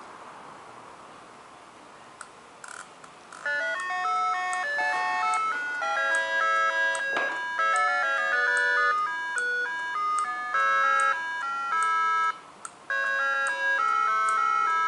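Electronic melody device powered from a 12 V motorcycle battery playing a tune in steady, stepped electronic notes, after a few clicks as the wires are connected. The tune starts about three and a half seconds in, drops out briefly near the end and resumes.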